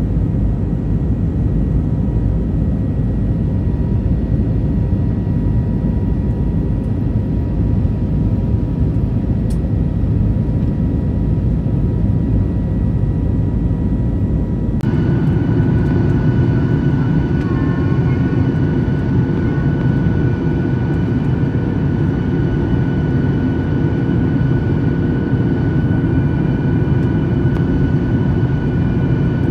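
Jet airliner cabin noise heard from a window seat over the wing: a steady engine and airflow rumble with a faint steady hum during the climb after take-off. About halfway through it cuts to another flight's cabin on approach to land, with a fuller rumble and a steady higher whine over it.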